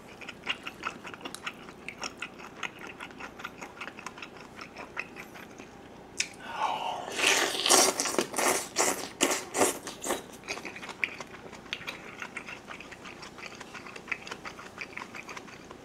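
Close-miked eating: wet chewing clicks on chewy potato sujebi dough in kimchi stew. About six seconds in comes a louder stretch of slurping and open-mouthed chewing lasting some four seconds as a spoonful of stew is sucked in, then the softer chewing resumes.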